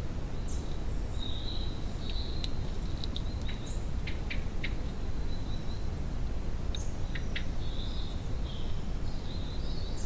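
Small garden birds chirping in short high twitters, with a few sharp ticks between them, over a steady low background rumble.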